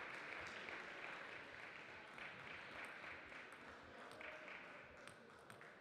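Applause from spectators in the hall, slowly dying away, with a couple of light ticks near the end.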